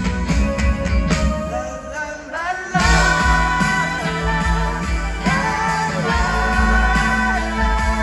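Live rock band with electric guitars playing a song with a sung vocal, heard through the venue's PA from the audience. The music thins out briefly, and the full band comes back in loudly about three seconds in.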